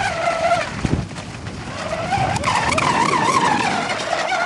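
Lehner brushless electric motor of an RC racing catamaran whining at speed, its pitch wavering up and down; it climbs higher about halfway through, then settles back near the end.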